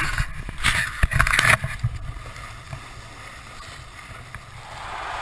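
Sharp knocks and rustling from a handheld GoPro action camera for about the first second and a half, then the steady low rumble and hiss of riding down a groomed snow run, the hiss growing toward the end.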